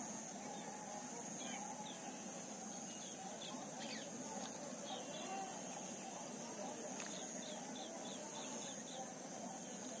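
Evening pond-side ambience: a steady, high-pitched insect drone, typical of crickets, with many short bird chirps scattered through it over a faint low murmur.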